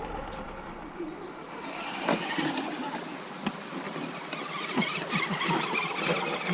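River water babbling and gurgling over rocks close to the microphone, a steady rush full of quick bubbling chirps, with a few light clicks in the second half.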